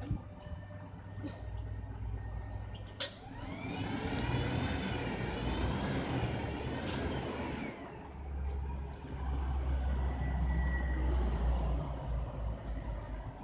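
City bus engines running in street traffic. A sharp click about three seconds in is followed by a wavering high-pitched squeal for several seconds, then a deep engine rumble swells in the second half.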